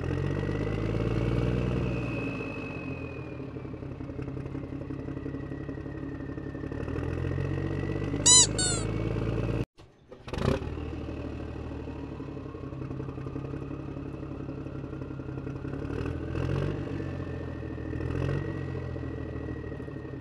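Engine sound effect for animated toy vehicles: a steady low engine running, swelling in the first few seconds and again near the end. A short high squeak comes about eight seconds in, and the sound cuts out briefly near the halfway point before the engine picks up again.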